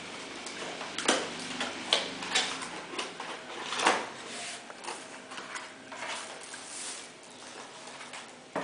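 A cardboard mouse-pad box in plastic wrap being handled and opened: a series of short rustles and scrapes of plastic and cardboard, with softer rubbing between them.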